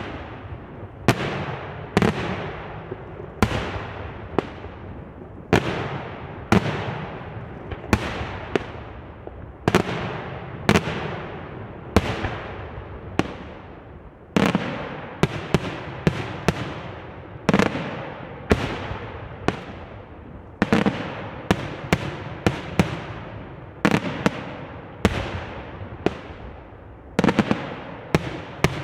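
Fireworks display: aerial shells bursting one after another in sharp bangs, each trailing off in echo, about one to two a second and coming faster near the end.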